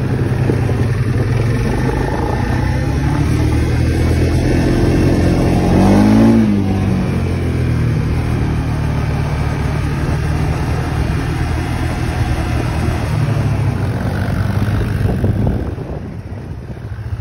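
Four-wheeler engine running under the rider while travelling a gravel road. About six seconds in it revs briefly up and back down, and near the end it eases off and quietens as the machine slows.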